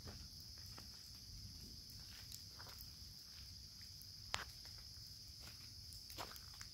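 Crickets trilling steadily in one continuous high drone, with scattered faint taps and one sharper click a little over four seconds in.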